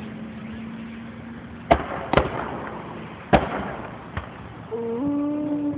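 Fireworks exploding: four sharp bangs spread over a few seconds. Near the end a person lets out a drawn-out "ooh".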